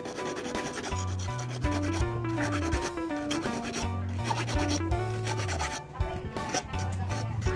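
A hand file rasping in repeated strokes on steel wire, shaping a handmade fish hook, over background music with a low bass line and a simple stepping melody.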